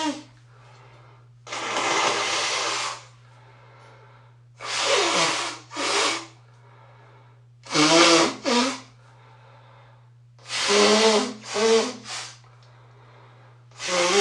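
A congested person blowing their nose hard, honking: one long hissing blow, then short blows mostly in quick pairs, several with a wavering honk from the blocked nose.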